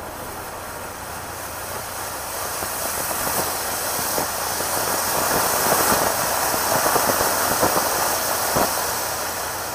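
Ground fountain firework (anar) spraying sparks: a steady hiss that builds, with scattered crackles and one sharper pop, then starts to die down near the end.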